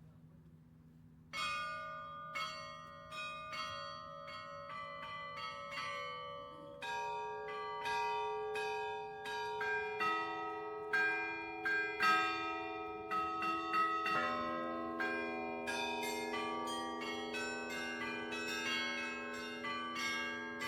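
Russian Orthodox church bells rung in a zvon: single strikes on several bells of different pitches, each left to ring on. It begins about a second in after a brief pause and grows busier as it goes.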